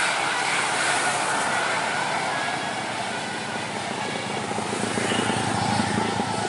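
Road traffic noise: a large vehicle's engine and tyre rumble as it passes, steady and swelling slightly near the end, with no horn sounding.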